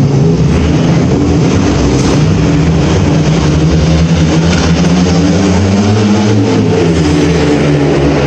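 Several speedway motorcycles, each with a 500 cc single-cylinder methanol engine, running hard together, their engine pitch rising and falling as the bikes race around the track.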